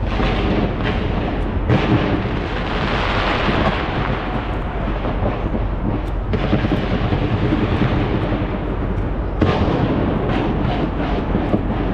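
Fireworks fired from the top of a skyscraper: a continuous rumble and crackle with many sharp bangs and pops. Fresh volleys start about two seconds in, about six seconds in and again about nine and a half seconds in.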